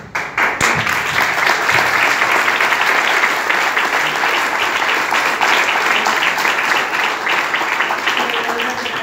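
Applause from a room full of guests, many hands clapping at once. It breaks out just after the start and eases off near the end.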